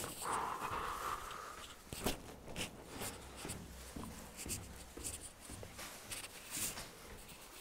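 Faint rustling and scattered clicks of clothing and a hand-held phone being handled while the wearer moves, with a short hiss near the start.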